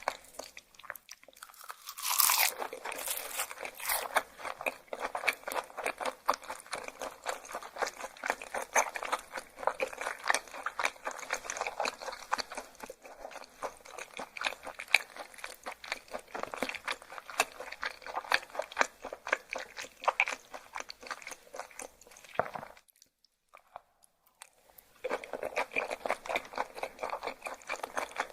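Close-up chewing of raw yellowtail sashimi: rapid, wet, crunchy crackling, with a louder bite about two seconds in. The chewing stops for about two seconds near the end, then starts again.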